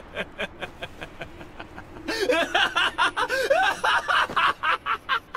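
A male anime voice performing a villain's maniacal laugh. It opens with quick, breathy chuckles, about four a second, then breaks about two seconds in into loud cackling whose pitch swoops up and down.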